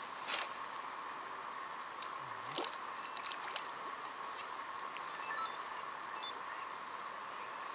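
Quiet lakeside ambience: a steady faint hiss with a few soft clicks and taps as a float rod is handled and lifted, and a brief run of high, stepping chirps about five seconds in.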